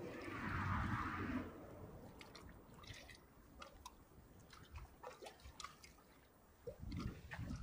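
Small waves lapping against a concrete embankment: a soft rush of water in the first second and a half, then scattered small slaps and drips.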